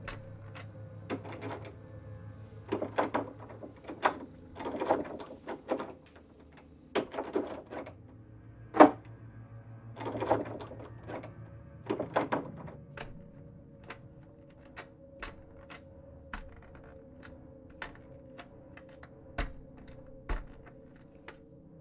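Footsteps and knocks: clusters of irregular thuds and clicks in the first half, then single sharp clicks spaced apart, over a steady low hum.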